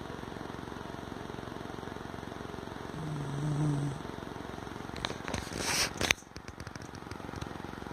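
Dog snoring, a steady fluttering rumble with a short pitched, groaning snore about three seconds in. About five seconds in comes a loud rasping burst with clicks, after which the rumble drops away and only scattered clicks remain.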